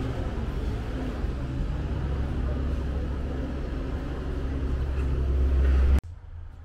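A deep, steady engine rumble with a faint hum, growing louder, then cut off abruptly about six seconds in.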